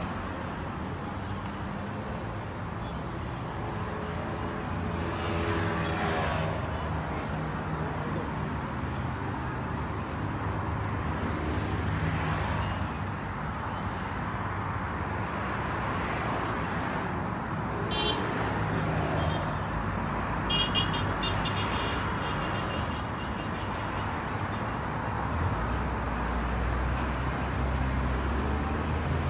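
Steady outdoor background noise of road traffic, with a rising and falling tone around five seconds in and a few short high-pitched tones past the middle.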